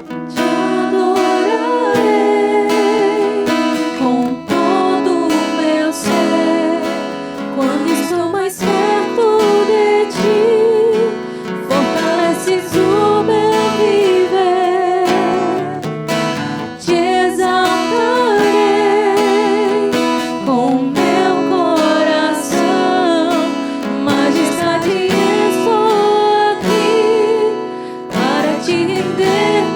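A worship song: strummed acoustic guitar accompanying a solo singer, who holds long notes with a marked vibrato in phrases a few seconds long.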